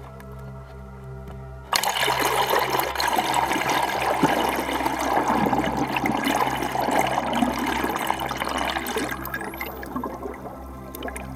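Rushing, bubbling water against an underwater camera housing under a moving kayak's hull. It starts suddenly about two seconds in and eases off near the end, with background music under it.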